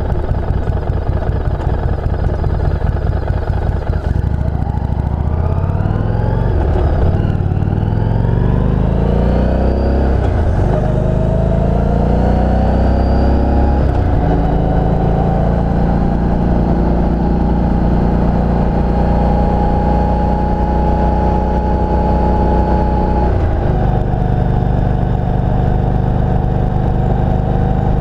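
Harley-Davidson motorcycle's V-twin engine on a ride: running low for the first few seconds, then accelerating through the gears, its pitch rising and dropping at each shift. It settles to a steady cruise, with one more change in pitch near the end.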